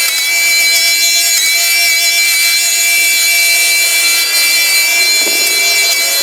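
Corded Garden Groom Midi hedge trimmer running with a steady high-pitched whine from its spinning blade and clipping-collection fan, with a brief dip in pitch about five seconds in.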